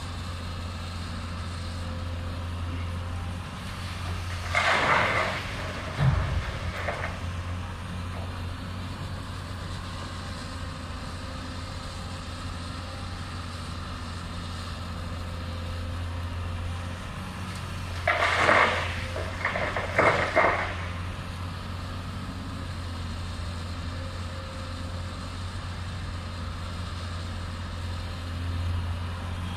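Hyundai HX210S crawler excavator's diesel engine running with a steady low hum as it digs stone. Short louder bursts of noise break in a few times, about 4, 18 and 20 seconds in, with a thud around 6 seconds.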